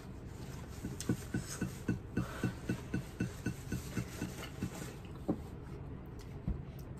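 A woman panting rapidly with her mouth open, about five short breaths a second for some four seconds, from the burn of ghost-pepper hot sauce. A single knock follows a little after five seconds in.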